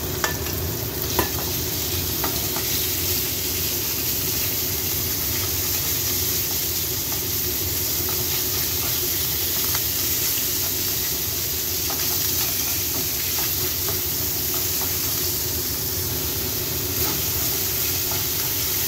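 Minced beef sizzling in hot oil with chopped garlic in a nonstick wok, stirred and broken up with a plastic slotted spatula that scrapes against the pan. A couple of sharp taps come in the first second or so, then a steady frying sizzle.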